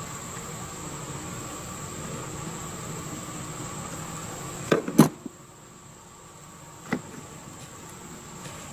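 Sharp clicks of hand tools and wire being handled during a wiring splice: a close pair about five seconds in, the loudest sounds here, and one more near seven seconds. They sit over a steady high-pitched whine.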